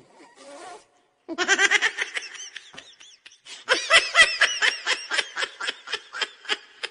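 Funny laughing sound effects: a run of rapid, high-pitched laughter starting about a second in, then a louder, longer laugh of quick ha-ha pulses from a little under four seconds in until near the end.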